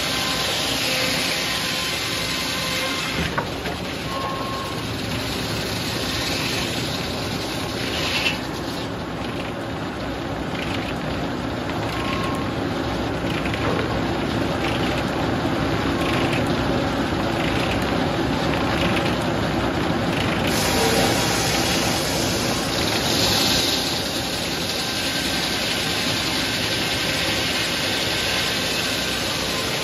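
Large circular head saw sawing a hard maple log. The cut tails off a few seconds in and the blade runs free for a stretch. A new cut bites in about two-thirds of the way through.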